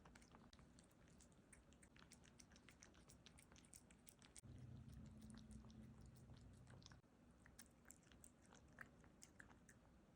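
Bengal kitten chewing and biting cat food: a quick run of small, soft clicks and crunches. A low hum joins in from about halfway through and stops about 7 seconds in.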